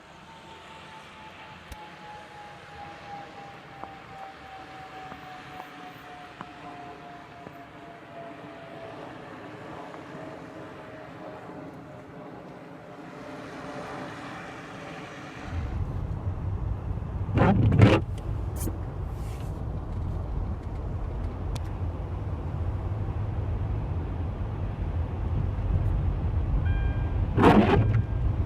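A car driving, with a steady whine that slides slowly down in pitch over the first dozen seconds. About halfway through, a heavy low rumble sets in suddenly, and two loud thumps follow about ten seconds apart.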